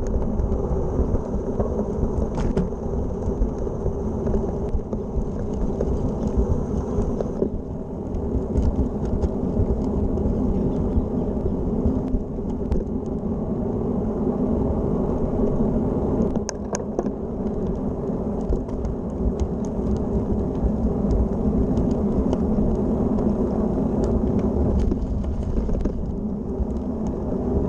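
Steady low wind rumble on the microphone and tyre noise from a road bike rolling along a path, with a few sharp clicks about two-thirds of the way through.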